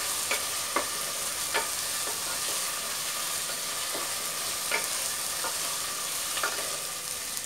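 Green chillies, curry leaves, onions and ginger-garlic paste sizzling in hot oil in a stainless steel pressure cooker while being stirred with a ladle. The ladle gives several sharp clicks against the metal pot. This is the sauté stage, meant to cook off the raw smell of the ginger-garlic paste.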